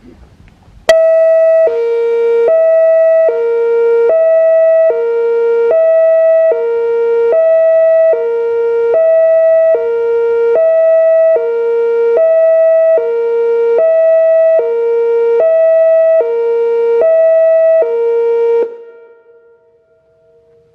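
Whelen WPS-2804 electronic warning siren sounding its hi-lo signal: a high and a low tone alternating evenly, each held a little under a second. The signal starts abruptly about a second in and cuts off near the end, leaving a brief fading tail.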